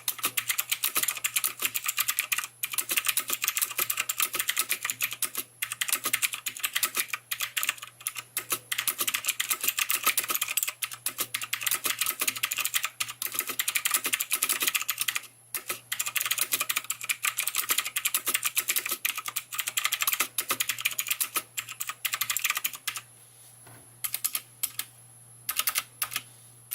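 Fast typing on an Azio MGK1 mechanical keyboard with clicky Kailh blue switches: a dense run of sharp key clicks with brief pauses, thinning to scattered keystrokes near the end. A faint low hum runs underneath.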